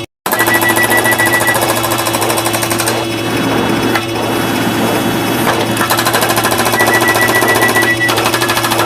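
Many overlapping sound-effect clips played at once, merging into a loud, fast, continuous rattling clatter. A high beeping tone sounds twice, near the start and again later. The sound cuts out for a moment at the very start.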